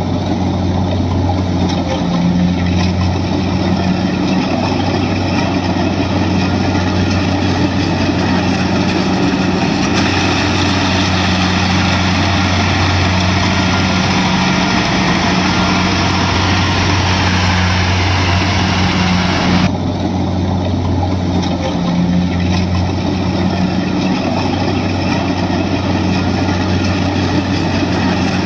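Kubota crawler combine harvester's diesel engine running steadily as the machine works, a continuous low hum with a change in the higher machine noise about a third and two thirds of the way through.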